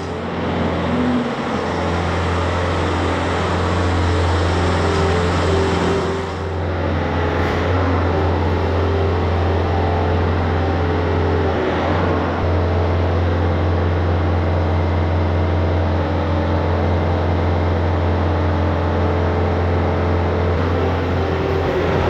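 Bobcat S66 skid steer's diesel engine running steadily at working speed, with a brief dip about six seconds in.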